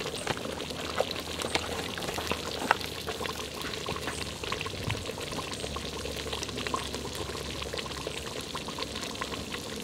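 Large aluminium pot of stew boiling hard over a wood fire, with a steady bubbling and many small pops as bubbles burst at the surface.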